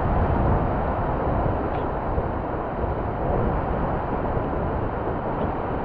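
Steady rushing noise of wind buffeting the microphone over the wash of ocean surf, heaviest in a low rumble.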